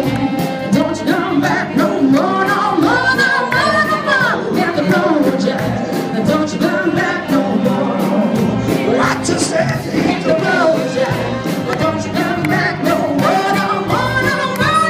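A woman singing a song into a microphone over a loudspeaker, accompanied by a military band with brass and a steady drum beat.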